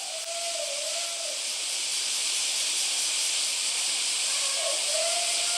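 Steady high hiss of outdoor ambience. Twice, a faint wavering tone rises and falls over it: once at the start and once near the end.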